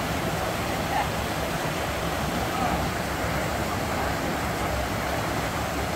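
Clear spring-run water rushing over rocks and spilling over a low weir in a small cascade: a steady, even rush of water.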